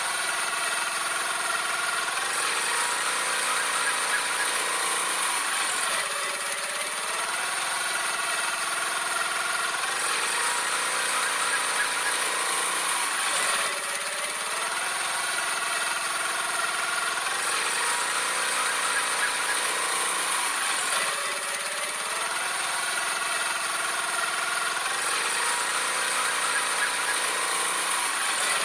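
Motor scooter engine sound effect on a loop, its pitch rising and falling in the same pattern about every four and a half seconds.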